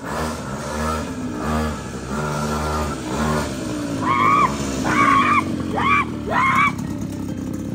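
A mini pocket-bike engine running and revving, pulsing on and off for the first few seconds and then running steadily. A child shouts four times in the second half.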